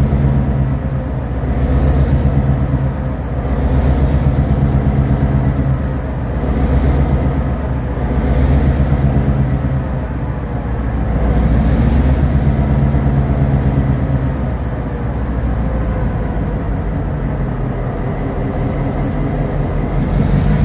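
Non-turbocharged EMD SD38-2 diesel locomotive engine working under load while shoving loaded coal cars, its steady drone swelling and easing every couple of seconds.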